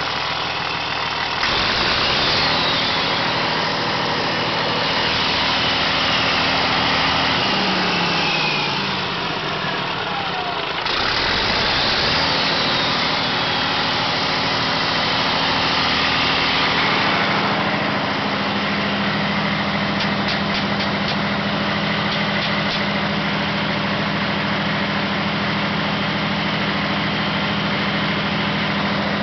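Caterpillar diesel generator engine running and being throttled up from idle. Its speed jumps up a second or so in, sags back down with a falling pitch, jumps up again, and then settles into a steady run at its 1800 rpm, 60-cycle operating speed.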